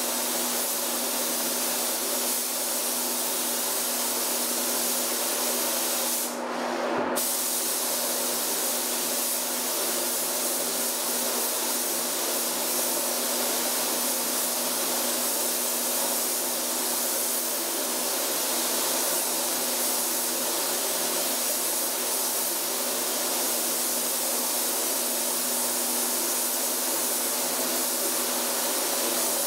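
Compressed-air paint spray gun spraying, a steady hiss that stops briefly about six seconds in, over a steady low hum.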